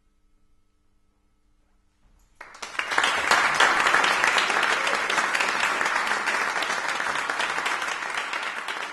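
After about two seconds of near silence, an audience suddenly breaks into applause that carries on steadily, easing slightly near the end.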